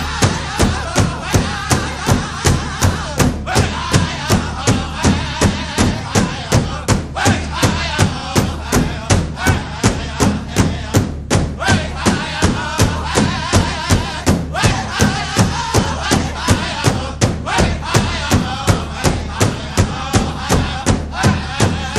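Background music with a steady, even drumbeat and chanting voices.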